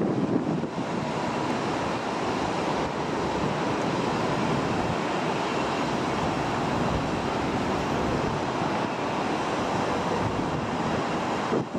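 Steady wind rushing over the microphone, an even noise with no distinct events.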